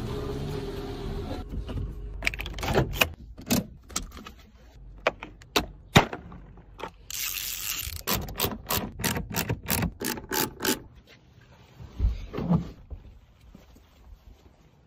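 A busy run of short knocks and clicks, coming quick and close together between about eight and eleven seconds in, with a brief hiss about seven seconds in.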